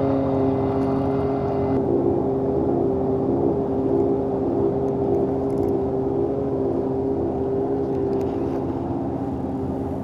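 Small boat's electric outboard motor running steadily, a constant hum that eases slightly toward the end.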